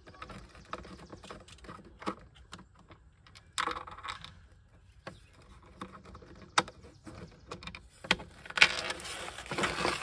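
Small metallic clicks and taps of a Torx bit turning out the two tiny T15 screws that hold a glove box latch. There is a brief scrape about four seconds in and a longer rustle near the end.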